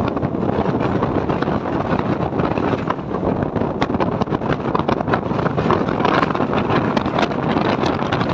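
Passenger train running, heard from on board: a steady rumble of wheels on the track, with wind on the microphone and many sharp rattling clicks, which grow thicker in the last couple of seconds.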